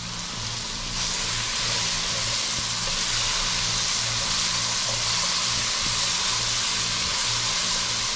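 Food frying in a hot pan, a steady sizzle that grows louder about a second in.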